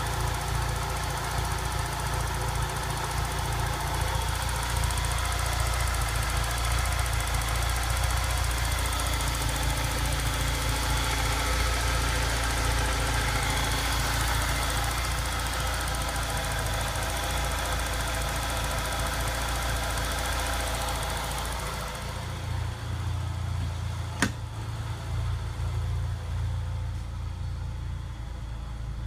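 Peugeot 406 petrol engine idling steadily, warmed up to normal operating temperature while fresh coolant circulates. About two-thirds of the way through it is heard from inside the cabin, duller and with a lower hum, and a single sharp click sounds shortly after.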